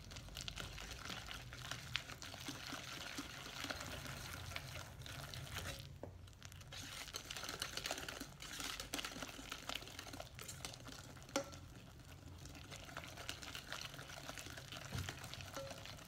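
Wire whisk stirring a thick creamed butter-and-egg batter in a glass mixing bowl as coffee liquid is worked in: continuous soft swishing and scraping with many small clicks of the wires against the glass, and one sharper click about eleven seconds in.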